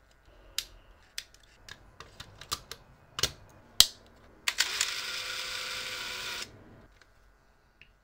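Pentax 645N medium-format film camera being handled while its 120 film insert is loaded: a run of small plastic and metal clicks, a sharp snap a little before four seconds in, then the camera's built-in motor whirring for about two seconds.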